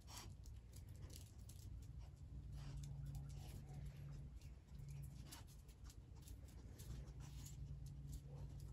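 Faint scattered clicks and snuffles of a dog searching on a concrete patio: paws and claws tapping as it moves and its nose sniffing at scent hides, over a steady low hum.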